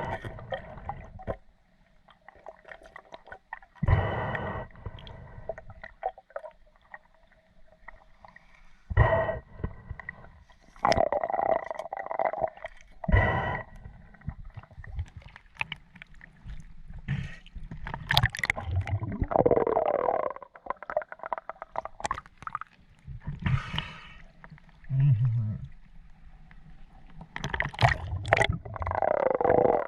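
Water gurgling and sloshing around a camera held in the sea, in irregular bursts with muffled low thuds.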